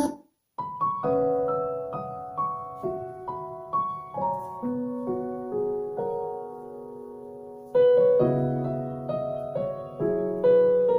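Solo piano introduction of a ballad, played back over HiVi H5 MKII (Swan) bookshelf speakers: after a brief gap, single notes and soft chords ring out and die away, then the playing turns louder and fuller with deeper chords about eight seconds in.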